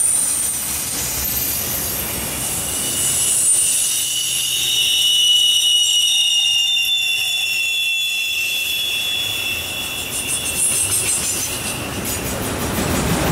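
Freight train of autorack cars rolling past, its steel wheels squealing in several high, steady tones that drift slightly in pitch over the low rumble of the cars. A run of clicks comes near the end.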